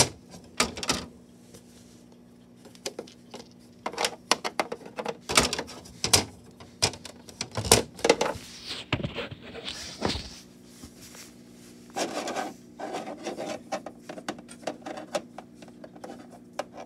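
Handling noise from a plastic toy figure and a plastic dollhouse: scattered clicks, taps and knocks with brief rubbing and scraping, irregular throughout, over a faint steady hum.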